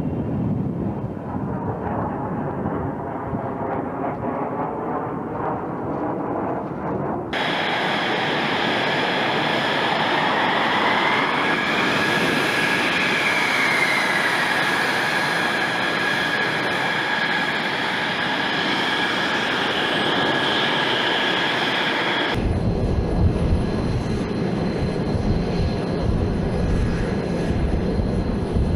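F-22 Raptor's twin Pratt & Whitney F119 turbofan engines, heard in three cut-together shots. First comes the rumble of a takeoff. Then there is a steady high-pitched engine whine whose tone swells up and back down about halfway through, and near the end a deep, heavy running rumble.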